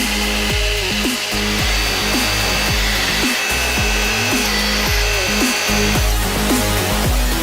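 Electronic dance music with a heavy bass beat and falling bass sweeps about twice a second, over a steady high metallic whine and hiss from a CNC lathe cutting metal.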